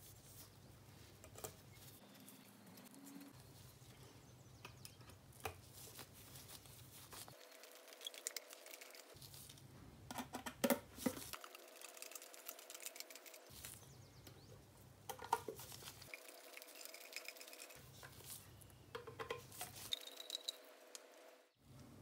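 A small screwdriver turning screws into the base plate of a coin bank: faint scattered clicks and light scraping, with a burst of louder clicks about halfway through.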